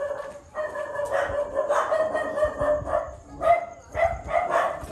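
A dog howling in one long, slightly wavering call, then barking in quick short barks, about three a second.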